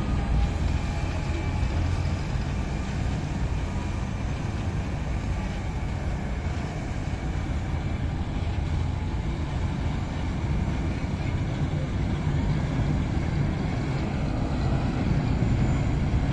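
Steady low drone of Thames Clipper catamaran river-bus engines, with water churning in the propeller wash.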